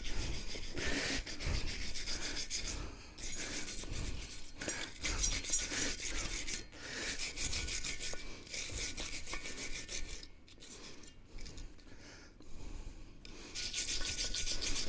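Wire brush scrubbing the lug studs and wheel hub of a GMC TopKick truck in rough, repeated scraping strokes, cleaning them before the wheel goes back on. It eases off briefly about ten seconds in.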